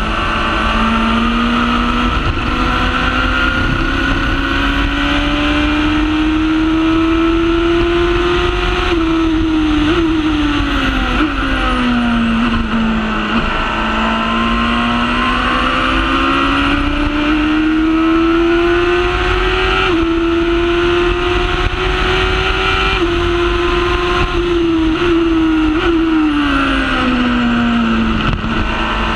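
Honda Hornet inline-four motorcycle engine of a Formula Predator's single-seater at full throttle, heard onboard: the engine note climbs slowly with short breaks at gear changes, and falls twice as the car slows for corners, over wind and road noise.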